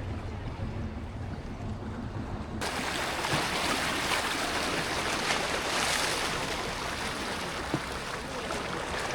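Seaside ambience: a low rumble, then, after an abrupt cut about two and a half seconds in, a steady rush of waves and wind.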